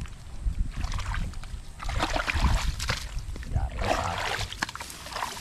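Irregular splashing and sloshing of muddy water as a drainage ditch is dug out. It comes in two longer bursts, about two and four seconds in, over a steady low rumble.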